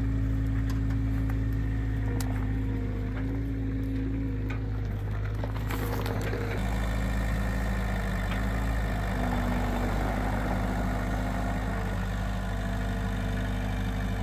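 New Holland skid-steer loader's engine running steadily as it lifts a log on its forks, its note shifting about six and a half seconds in. A few light clicks and rattles come in the first few seconds.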